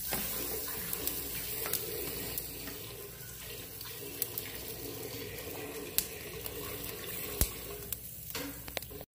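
Steady sizzling hiss from a hot grill as chile peppers and tomatoes are laid on the cast-iron grate to char, with a few sharp clicks near the middle and toward the end.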